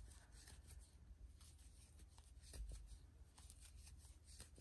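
Very faint, irregular soft ticks and rustles of a crochet hook working yarn in single crochet, with one soft low bump a little past halfway.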